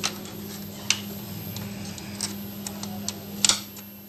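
Sharp plastic and metal clicks and knocks from hands working a lock catch free inside a Xerox copier's belt section: a handful of separate clicks, the loudest near the end. A steady low hum runs underneath.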